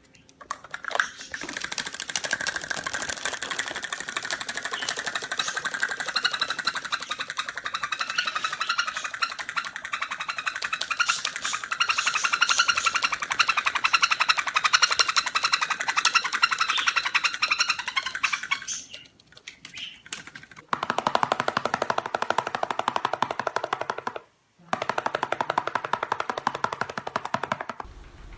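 Pet birds chattering in rapid, buzzy, pulsing trills. The high chatter stops about two-thirds of the way through and a lower, buzzier chatter follows in two stretches.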